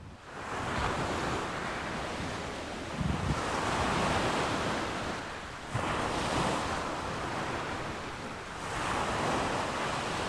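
Ocean surf: waves washing in and drawing back in slow surges, about one every three seconds.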